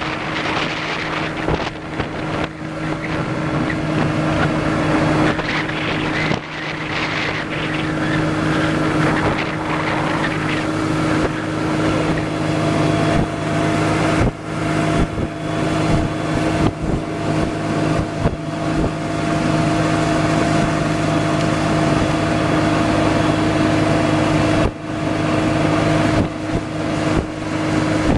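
Small motorboat's engine running at a steady low speed as the boat cruises, with wind buffeting the microphone.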